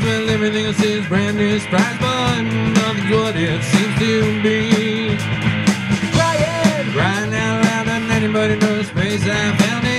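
Live rock band playing loud and steady: two electric guitars, a three-string bass guitar and a drum kit, with bending melody lines over a regular drum beat.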